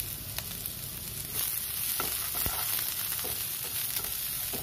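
Chopped vegetables sizzling in olive oil in a nonstick frying pan while a spatula stirs them, knocking against the pan a few times. The sizzle gets louder a little over a second in.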